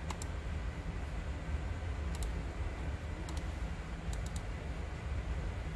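Computer mouse clicking, mostly in quick pairs every second or so, over a steady low room hum.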